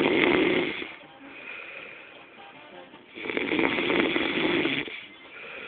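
A man snoring heavily, each snore a harsh rattling rasp about two seconds long; one fades out about a second in and the next comes from about three to five seconds in.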